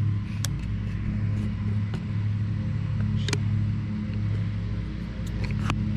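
Steady low droning hum, with a few sharp clicks over it.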